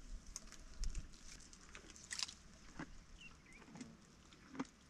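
Black rhinoceros browsing on a bush: irregular sharp snaps and crunches of twigs being plucked and chewed, the loudest a little after two seconds.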